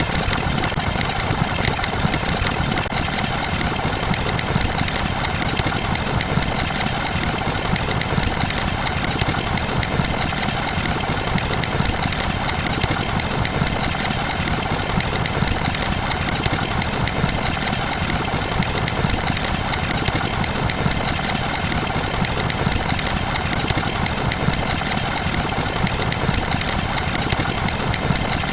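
A steady, unchanging mechanical rumble with hiss over it, like an engine idling.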